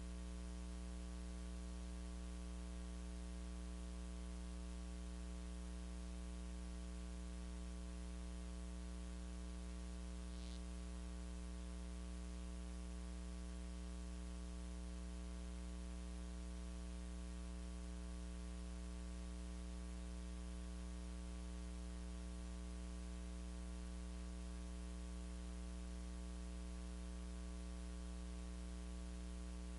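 Steady electrical hum with a ladder of overtones over a constant hiss, with no music or voices coming through; one faint short tick about ten seconds in.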